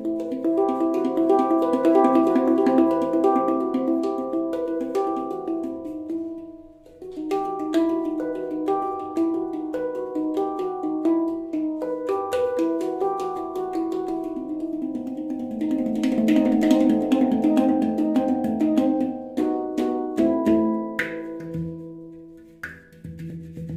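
Steel Monkey handpan tuned to E Romanian Hijaz, played with the fingers: quick runs of ringing steel notes with sharp taps, a short break about seven seconds in, then a few last notes left to ring out and fade near the end.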